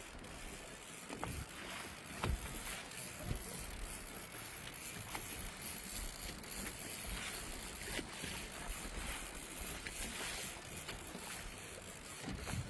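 Steady noise aboard a small fishing boat on the water, with scattered knocks and clicks.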